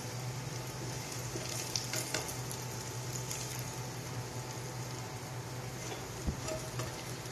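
Garlic and onion frying in hot oil in a pan, a steady sizzle, with a spatula scraping and knocking against the pan a few times as they are stirred.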